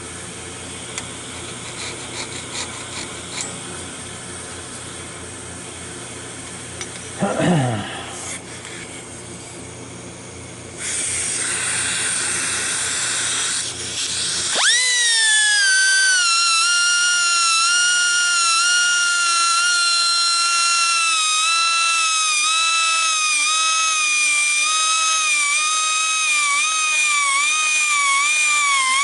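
Handheld air tool sharpening the teeth of a sawmill band blade. A hiss comes in a little before the middle. About halfway through the tool starts with a steady high whine that wavers slightly as it works on the blade.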